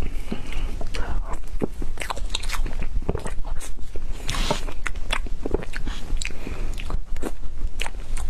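Close-miked chewing and mouth sounds of a person eating cake: many small, irregular wet clicks and smacks over a steady low hum.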